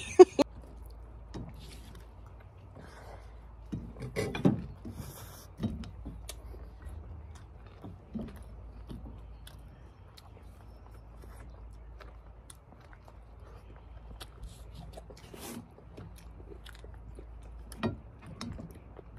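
Chewing and eating sounds close to the microphone, with scattered small clicks and knocks.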